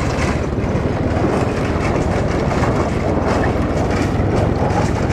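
Motorbike riding over a rough dirt road: engine noise and rattling over the bumps blend into a steady, dense roar.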